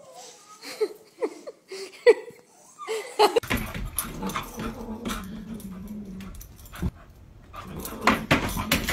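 A small dog gives a quick run of short, high yips. Then a low, steady growl comes in, with scuffling and a few sharp taps, as a dog and a cat spar with their paws.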